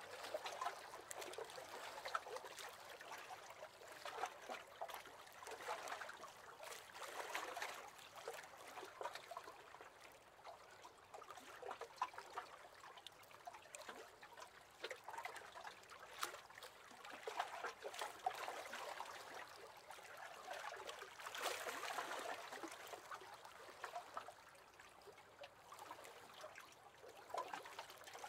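Small waves lapping against the hull of a wooden rowing boat: a faint wash of water that swells and ebbs every few seconds, with light splashy ticks.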